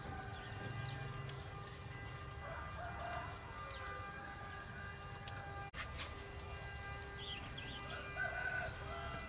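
Outdoor ambience with a bird chirping in quick runs of short high notes and farm fowl calling now and then.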